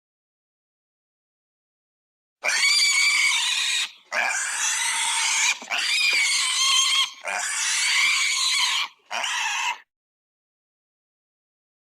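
Pig squealing: after silence, five high-pitched squeals in quick succession start about two and a half seconds in. Each lasts about a second and a half, and the last one is shorter.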